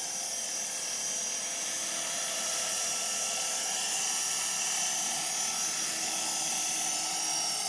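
KDS 450 SV electric RC helicopter on the ground with its motor and rotors spinning, a steady high whine made of several tones over a hiss.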